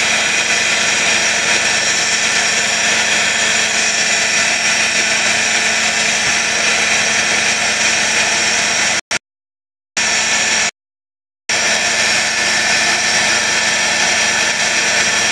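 A motor or engine running steadily and loudly with a constant hum, unchanged throughout. The sound cuts out completely twice for under a second each, a little past the middle.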